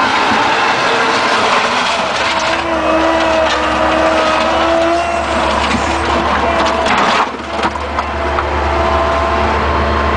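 Bobcat skid-steer loader working a 709 backhoe attachment: the engine runs under load with a hydraulic whine that wavers in pitch, and the bucket clanks a few times. The loudness drops briefly about seven seconds in.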